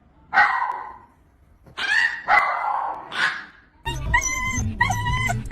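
A dog barking four times, short sharp barks spread over the first few seconds. About four seconds in, a tune with an evenly repeating melody starts.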